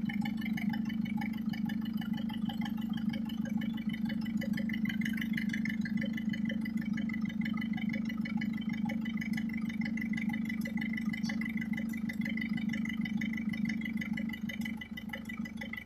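Mercedes Vito diesel engine idling steadily, just after a hard start on a cup of gasoline poured into the turbo intake; the owner puts the hard starting down to a faulty glow plug.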